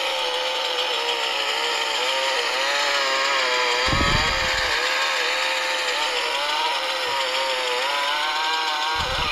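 Chainsaw sawing sound effect from a blaster's sound module, played through small speakers built into the shoulder stock: a continuous engine buzz whose pitch wavers up and down, with no deep bass. Dull knocks are heard about four seconds in and near the end.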